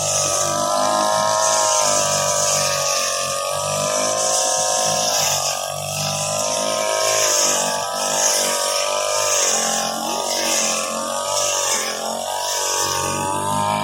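Grass cutter's motor running at high speed, its pitch wavering and dipping briefly a few times.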